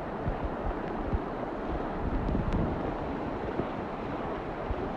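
Steady rushing noise of flowing floodwater, with wind buffeting the microphone in uneven low rumbles.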